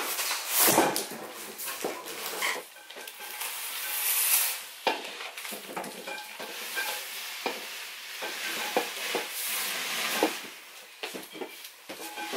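Large cardboard box scraping and rubbing as it is dragged and shuffled across the floor, with scattered knocks and bumps.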